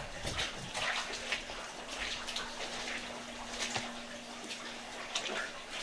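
Footsteps splashing through shallow standing water on a hard floor: irregular wet splashes at uneven intervals. A faint steady hum runs underneath for most of it.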